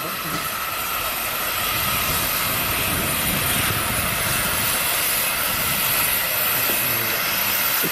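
Steam locomotive drifting slowly into the station with a steady rushing hiss of steam, growing a little louder over the first couple of seconds. Wind buffets the microphone.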